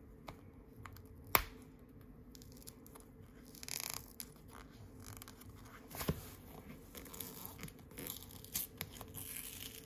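Topps Rip trading card being torn open by hand along its perforation, in short, quiet pulls. There is a sharp snap about a second and a half in, then brief tearing rasps and small clicks every few seconds.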